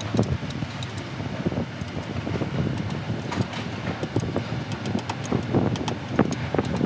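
Light metallic clicks of a steel wrench working a hose clamp bolt on a radiator pipe, scattered irregularly over a steady low rumble.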